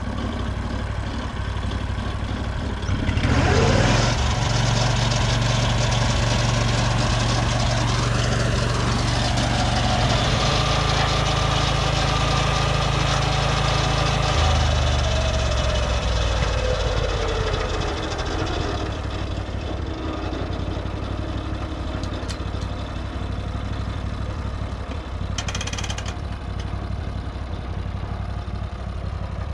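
Lucas Mill 618 swing-blade sawmill's engine idling, then revving up to full throttle about three seconds in and running high for about ten seconds. It then winds back down to a steady idle, its pitch sliding down over a few seconds.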